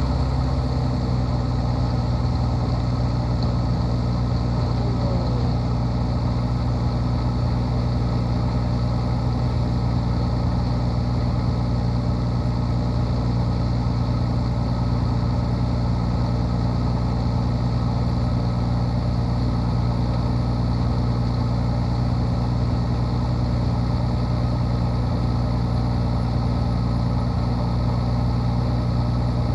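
Single-engine aerobatic plane's piston engine and propeller running at a steady, unchanging speed, heard loud from inside the closed cockpit.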